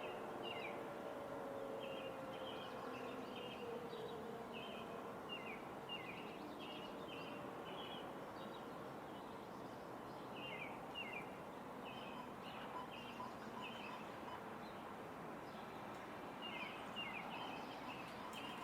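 Tornado warning siren winding down, its falling tone fading out over the first few seconds. After that, steady background noise with repeated short bird chirps in small clusters.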